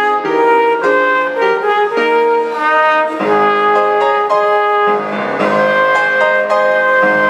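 Solo trumpet playing a hymn melody in held notes that move from pitch to pitch, with piano accompaniment.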